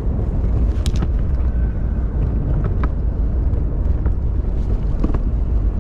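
Steady low rumble of a pet stroller rolling over pavement, heard from inside the stroller, with a few sharp clicks and rattles.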